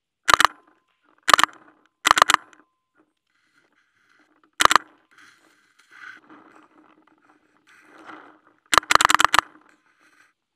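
Paintball marker firing in short bursts of sharp cracks: a pair, another pair, a quick cluster, a single shot, then a rapid string of about eight shots near the end.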